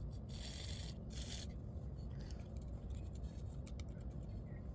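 A snow blower carburetor's float rod being cleaned by hand: two short hisses in the first second and a half, then light rubbing and small clicks.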